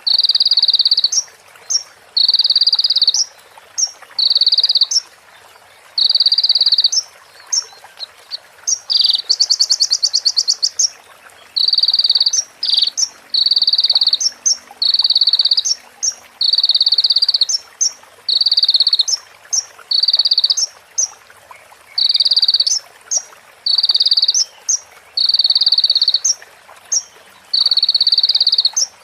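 Kolibri ninja (sunbird) singing mimicked calls of a female prenjak and ciblek (prinias): a long run of high, buzzy trills, each under a second, repeated about every one and a half seconds with short sharp notes between. About a third of the way in, one faster rattling trill replaces them.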